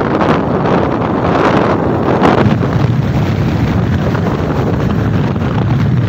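Wind buffeting the microphone of a camera on a moving vehicle: a loud, steady rush and low rumble, gusting harder in the first couple of seconds and then settling.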